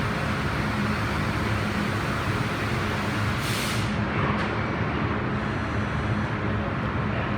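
Steady running noise from a 2004 Trumpf 5-axis CNC laser cutting machine, with a low hum, a short burst of air hiss about three and a half seconds in and a click just after.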